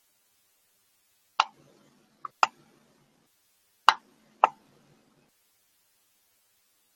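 Computer mouse button clicks picked up close to the microphone: four sharp clicks over about three seconds, with a fainter click just before the second.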